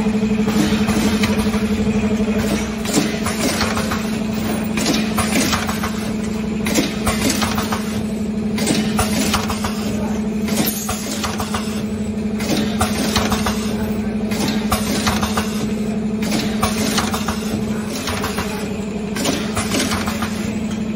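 Automatic ice-pop pouch form-fill-seal packing machine running: a steady motor hum under repeated mechanical clacks from the sealing and cutting mechanism.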